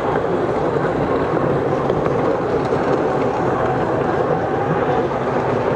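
Racing jet skis running at speed on the course: a steady, unbroken engine drone.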